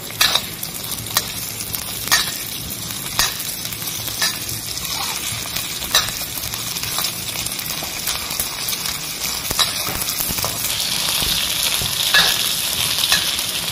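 Dried anchovies sizzling in hot oil in a wok while a metal spatula stirs them, scraping and knocking on the wok about once a second. The sizzle grows louder near the end.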